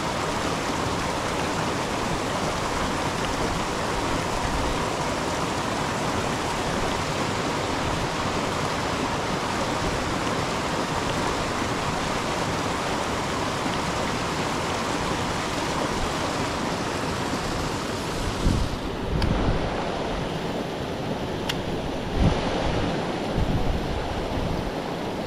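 Creek water rushing and churning over rocks in a steady white-water run. Beginning about eighteen seconds in, a few dull low knocks sound over the water.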